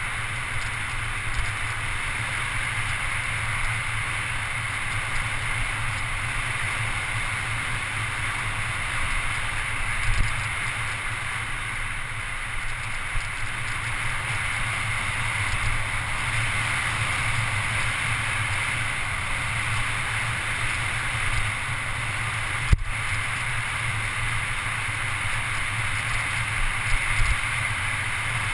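Steady wind rush over a handlebar-mounted GoPro HD with the rumble of mountain-bike tyres rolling fast on asphalt during a downhill descent. A few short knocks come through, about ten seconds in, again past twenty seconds, and near the end.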